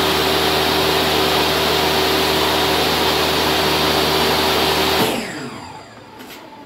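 Table saw running and cutting a wooden board into a disc as it is turned on a pivot pin, a steady loud whine of blade and motor. About five seconds in the noise drops away, falling in pitch as the blade slows.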